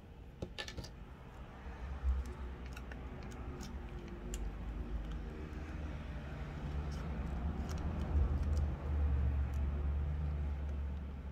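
Scattered light plastic clicks and taps from a DJI Mini 2 drone's arm and body shell being handled and worked into place by hand, over a low rumble that swells in the second half.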